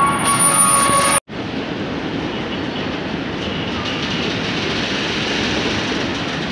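Freight train of tank wagons rolling past at a station, a steady rumble of wheels on rails. Over the first second there is a high whine on top; then the sound cuts out abruptly and the steady rumble resumes.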